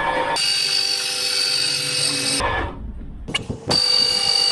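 Two-post car lift's electric motor running with a steady high whine, lifting a car body off its frame. It drops out for about a second midway, then runs again.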